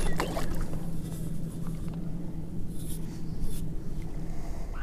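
Wind rumbling and buffeting on the microphone in an open field, with a steady low hum beneath it and a few brief splashy hisses of water, near the start and again around three seconds in.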